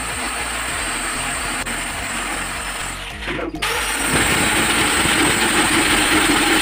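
Angle grinder with a diamond core bit cutting a hole through a granite countertop, run wet with water poured on the bit. A steady grinding whine that drops out briefly just past three seconds in, then comes back louder.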